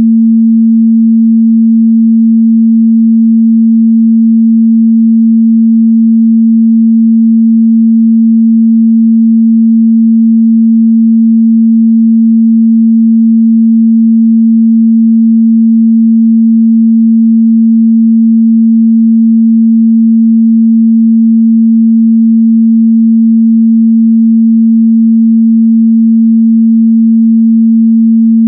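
A steady, loud 226 Hz sine-wave test tone, one pure pitch held without change.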